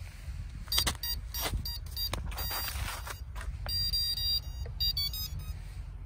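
Brushless motor electronic speed controllers (ESCs) beeping their power-up tones after a LiPo battery is connected: a quick run of short high beeps in the second half. Earlier come sharp clicks and rustling as the plug connectors are handled.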